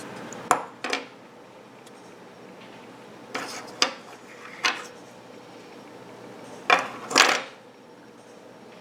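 Clicks and clattering knocks of hard parts being handled while an evaporator fan motor assembly is taken apart, coming in small clusters, with the loudest pair near the end.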